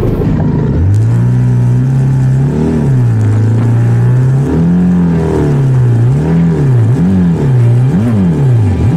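Benelli 500 cc parallel-twin motorcycle engine revved again and again, the pitch rising and falling, while the bike is stuck in deep sand. The revs come in quicker, sharper blips near the end.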